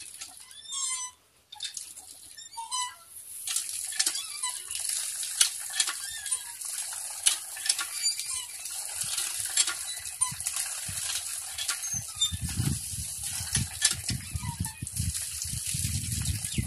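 Cast-iron hand pump worked by its lever handle: squeaks and metallic clicks from the handle and plunger. From a few seconds in, water splashes from the spout, and the splashing gets heavier near the end.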